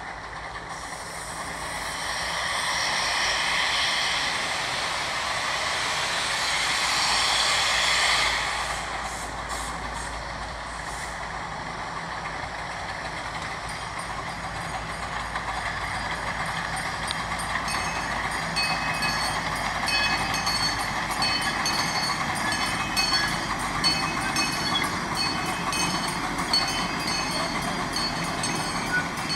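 Loud hiss of steam venting from a 15-inch-gauge steam locomotive, cutting off sharply about eight seconds in. Afterwards the miniature train rolls closer and past, with thin high squeals and light clicks from its wheels on the rails.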